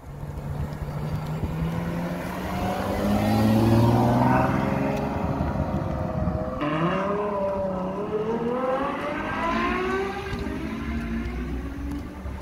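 Ferrari sports car engine accelerating hard away: the revs climb to a loud peak, drop sharply at a gear change about six and a half seconds in, then climb again and fade as the car pulls away.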